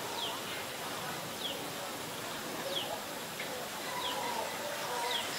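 Birds calling: a short, high, falling note repeated about every second and a quarter, with fainter lower calls underneath.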